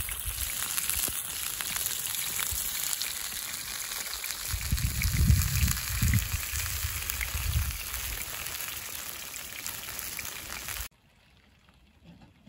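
Meat sizzling in a grill pan over campfire embers: a steady hissing sizzle with fine crackles, with low rumbling under it about halfway through. It cuts off suddenly near the end.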